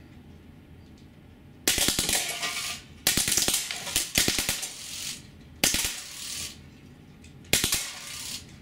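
Drozd Blackbird BB machine gun on high-pressure air firing four short bursts of steel BBs, the first about two seconds in. Each burst is a quick run of rapid shots, mixed with the metallic clatter of BBs hitting aluminium drink cans and knocking them over.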